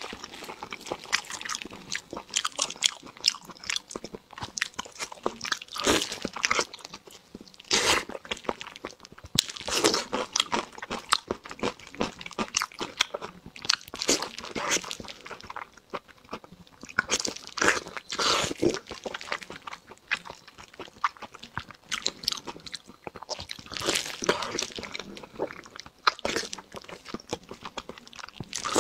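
Close-miked eating sounds: a person biting and chewing long braised strips coated in red sauce, in dense, irregular bursts of crunching and chewing.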